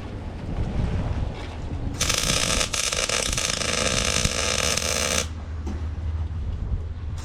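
Electric welding arc crackling in a burst of about three seconds, welding a nut onto a broken-off wheel bolt so it can be backed out, with a second burst starting near the end. Wind rumbles on the microphone between bursts.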